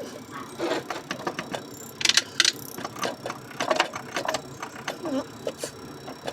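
Irregular clicking and clinking of metal parts and hand tools being worked.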